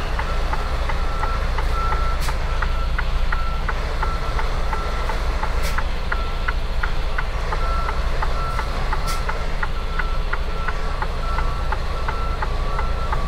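Backup alarm beeping over and over at an even pace over the steady rumble of a semi truck's diesel engine as the truck reverses.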